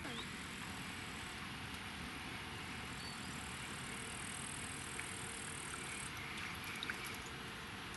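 Quiet outdoor lakeside ambience: a faint, steady hiss. A thin high-pitched buzz runs through the middle few seconds and stops abruptly, and there are a couple of small clicks.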